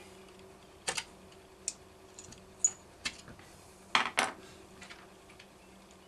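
Scattered light clicks and taps of a screwdriver and small parts handled against a chainsaw's housing and a metal workbench, a few single clicks with the loudest pair about four seconds in.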